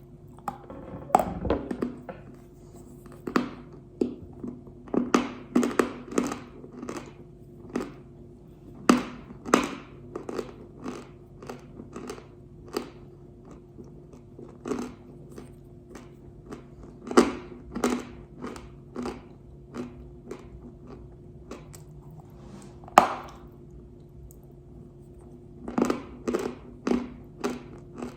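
Pieces of pink Uzbek chalk being bitten and chewed close to the microphone: sharp, irregular crunches and cracks, a few a second, over a faint steady hum.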